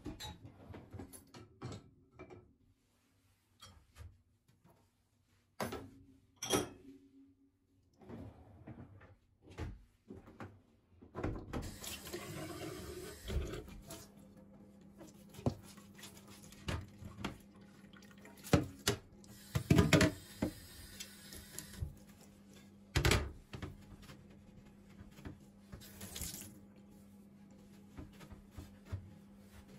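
A tap running at a sink in short spells, with clinks and knocks of things being handled and washed between them. A steady low hum sets in partway through.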